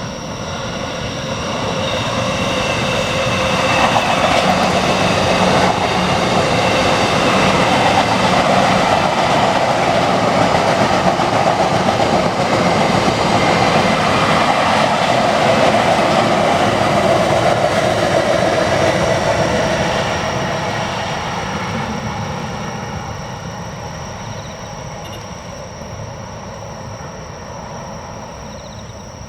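JR Utsunomiya Line electric train passing over a level crossing. The wheel and running noise builds over the first few seconds, stays loud for about fifteen seconds, then fades steadily as the train moves away.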